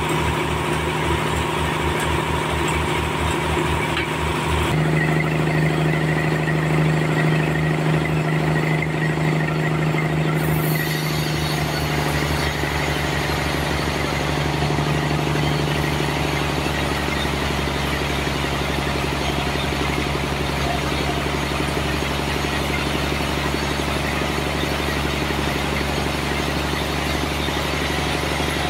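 Sawmill running with its engine at a steady, fast pulsing note, the pitch and loudness shifting about five seconds in and again about eleven seconds in as the load on the machine changes.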